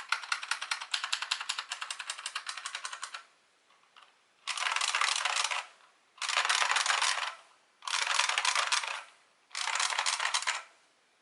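IBM Model M SSK keyboard's buckling spring switches clacking under fast typing for about three seconds. After a short pause come four separate bursts of very rapid keystrokes, each a little over a second long.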